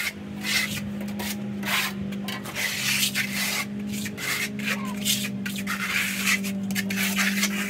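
A plasterer's float rubbing back and forth over a fresh base coat of stucco, repeated rasping strokes two or three a second, floating the coat out level. A steady low hum runs underneath.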